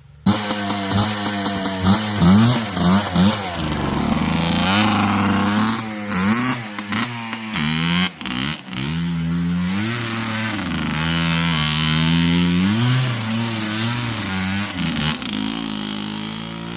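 Yamaha Blaster ATV's two-stroke single-cylinder engine revving up and down over and over, its pitch rising and falling, as the ATV spins donuts on snow and ice. The engine cuts in suddenly right at the start.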